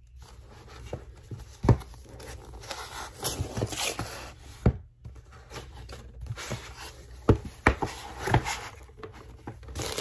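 Cardboard packaging being handled and opened: a printed sleeve slid off a white box and the lid flap lifted, with scraping and rustling of card and several sharp taps and knocks.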